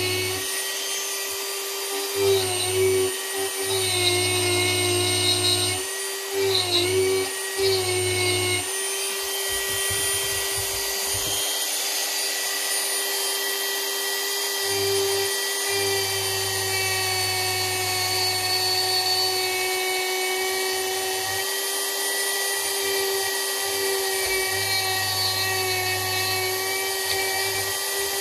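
Dremel rotary tool running at high speed with a steady high whine as its bit carves wood. The whine wavers and the level jumps several times in the first eight seconds or so, then holds steady.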